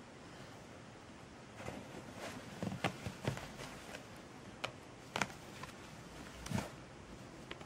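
Scattered rustles and soft knocks of a kitten rolling over and pawing at the sides of its padded fabric cat bed, starting about a second and a half in and dying away near the end.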